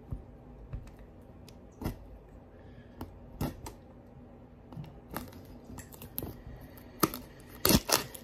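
Fingers handling and picking at a cardboard product box: scattered sharp clicks, taps and scrapes, coming thicker and louder near the end.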